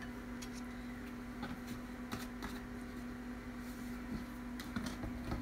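Steady hum of a microwave oven running, with a few faint clicks and light knocks of things being handled on a kitchen counter.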